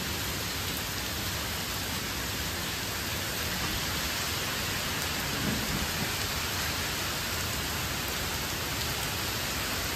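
Very heavy rain pouring down in a steady, even hiss, falling on leafy trees and a paved terrace.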